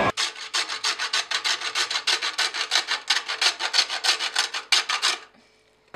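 Hazelnuts being grated by hand on a stainless steel grater over a cake: a fast, even run of scraping strokes, about five a second, that stops about five seconds in.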